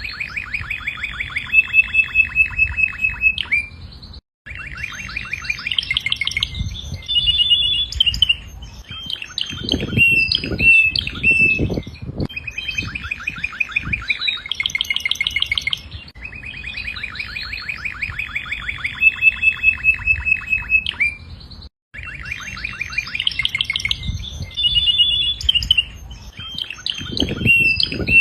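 Domestic canary singing: a long run of song made of rapid trills of repeated notes and held whistled notes, broken by two short pauses.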